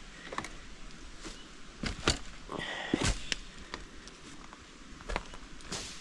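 Footsteps on a rocky, leaf-strewn forest trail: irregular sharp clicks and knocks of feet on rock and twigs, loudest about two and three seconds in. A brief high tone sounds about two and a half seconds in.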